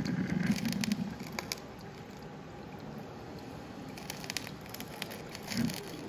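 De'Longhi COM532M drip coffee maker brewing, with water on the outside of the glass carafe sizzling and crackling on the hot warming plate in scattered sharp pops. A low hum fades out in the first second.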